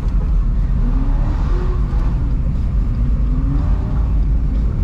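Road vehicle noise heard from inside a moving car: a steady engine and tyre rumble, with the engine pitch rising twice as the car accelerates.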